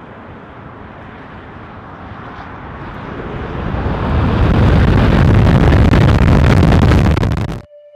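Wind rushing over an outside-mounted camera microphone, with tyre and road noise, from a Tesla electric car accelerating hard on track. The rush grows steadily louder with rising speed and cuts off suddenly near the end.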